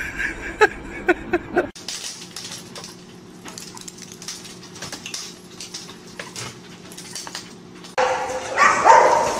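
Dogs barking and yelping over splashing water, starting suddenly and loudly about a second before the end. Before that come a few short, sharp high-pitched yelps, then a stretch of faint scratching and clicking.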